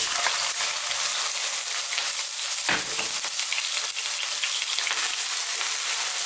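Diced onion sizzling in hot olive oil in a frying pan. A steady high hiss starts abruptly as the onion hits the oil. There is a brief dull bump about three seconds in, and near the end a wooden spatula stirs the onion.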